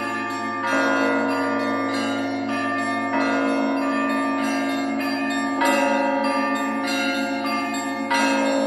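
Church bells ringing: a heavier stroke comes about every two and a half seconds, four times, over a busy pattern of lighter bell strikes that ring on into one another.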